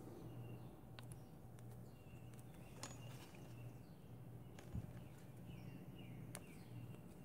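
Faint, quiet scene: a few sharp clicks of a hex driver and screw being worked on the buggy's plastic rear wing, over a low steady hum, with faint bird chirps.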